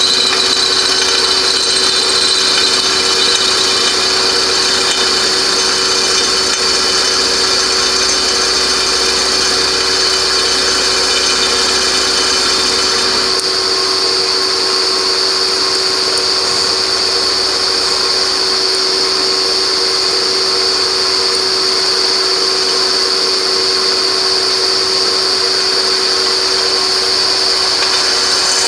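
Beaver milling machine running steadily with an end mill cutting into a broken titanium M7 wheel screw: a steady hum with a high cutting whine over it. The low rumble drops away about halfway through.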